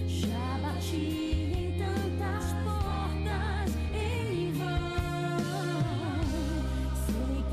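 A woman singing a gospel song into a handheld microphone over instrumental accompaniment with a steady bass; her held notes waver with vibrato.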